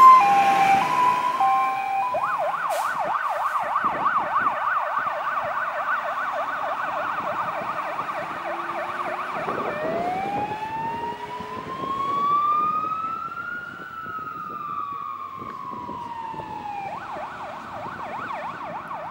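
Siren of a Jelcz 422 fire engine on an emergency run: a few two-tone notes, then a fast yelp for several seconds, then one slow wail rising and falling, then the yelp again. It fades gradually as the truck drives away.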